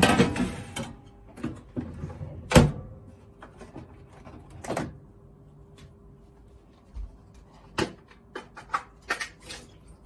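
Metal baking tray scraping and clattering as it slides into the oven, with knocks as it is seated and the oven door is shut. A run of short clicks and taps follows near the end.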